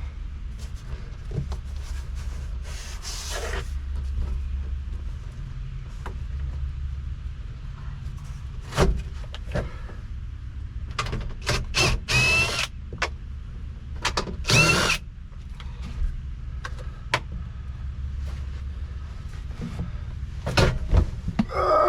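Cordless drill or driver spinning in a few short bursts, rising in pitch as it spins up, while dash pad screws are backed out, with clicks and knocks of tools and loose parts. A steady low hum runs underneath.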